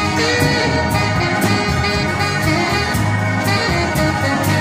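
Live small-band jazz: saxophone and another horn playing over a drum kit, with cymbal strokes keeping a steady beat about twice a second.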